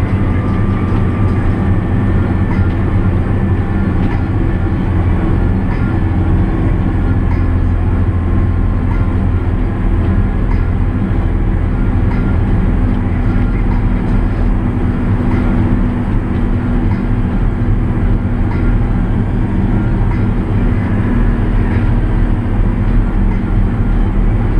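In-cab sound of a JCB Fastrac 8310 tractor driving on a paved road: its diesel engine drones steadily under load at road speed, mixed with road and cab noise.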